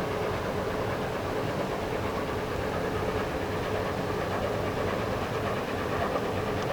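Steady mechanical drone of a passing lake freighter's engines and machinery, a low rumble with a constant hum running through it.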